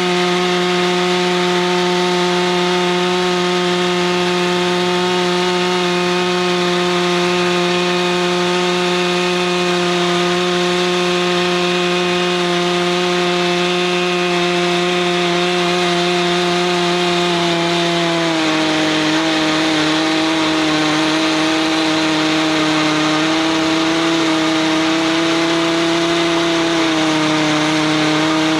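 Stihl MS 661 two-stroke chainsaw running at steady high revs in a chainsaw mill, ripping a beech log lengthwise into boards. About two-thirds of the way through, the engine pitch drops a little and then wavers under the load of the cut.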